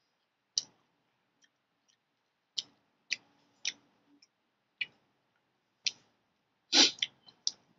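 A person chewing a mouthful of noodles, making sparse soft smacking clicks with the lips and mouth about a second apart, with a louder cluster of mouth sounds near the end.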